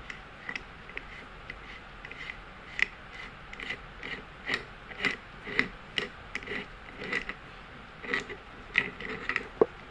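Single-speed bicycle freewheel being turned off the thread of an e-bike hub motor by hand, giving irregular metallic ratchet clicks, about one to three a second.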